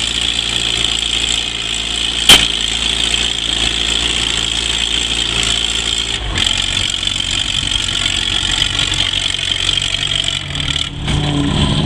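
Minneapolis-Moline G tractor's four-cylinder engine running under load while it drags a weight sled, with a single sharp bang about two seconds in. About six seconds in, its low rumble gets heavier, and it eases briefly near the end.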